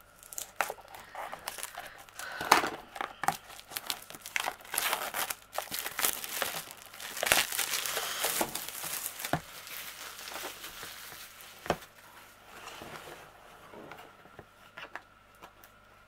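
Packaging crinkling and rustling as it is handled and unwrapped by hand, with scattered sharp clicks and taps. It is busiest about halfway through and thins out over the last few seconds.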